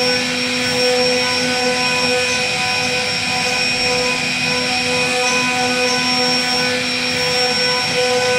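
CNC router spindle running steadily with a small carving bit cutting into a wooden door panel: a high, even whine with a hiss of wood being cut.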